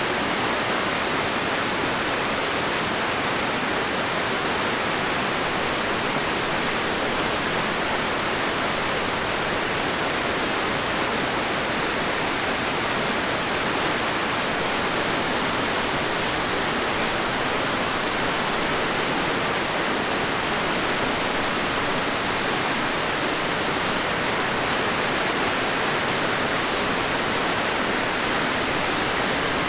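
The Crystal River rushing and tumbling over the falls beside the mill: a steady, unbroken roar of falling water.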